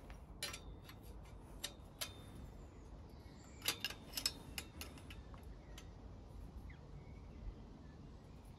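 Faint, scattered metallic clicks of steel bottom-bracket tools, a hook spanner and a pin spanner, knocking against the lockring and adjustable cup as they are fitted to lock up the cup-and-cone bottom bracket. A few single clicks in the first two seconds, then a quick cluster about four seconds in.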